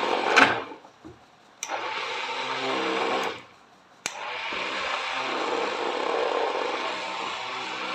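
Leo Chef 220-watt electric hand blender running in a bowl of papaya, milk and water, churning the juice mix with a steady motor hum. It stops twice for about a second and starts again suddenly each time.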